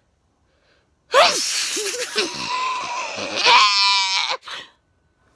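A woman sneezing hard: one long, loud sneeze that surges twice and ends on a voiced 'ahh', followed by a short sharp breath.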